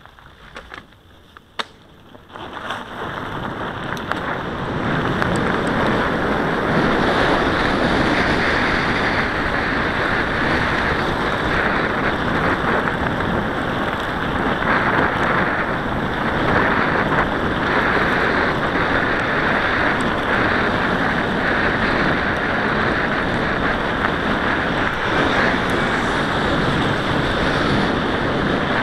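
Wind rushing over the microphone of a camera on a moving mountain bike, mixed with tyre noise on a gravel path, building up over the first few seconds as the bike gathers speed and then holding steady. A few sharp clicks come in the quieter first two seconds.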